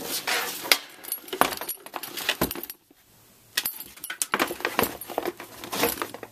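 Metal hand tools clinking and rattling as they are handled, with a short pause about three seconds in.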